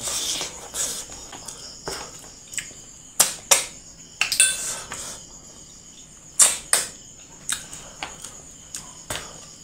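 Close-miked eating sounds of a man chewing mouthfuls of rice and curry eaten by hand: wet smacks and sharp mouth clicks come at irregular intervals, a few of them loud.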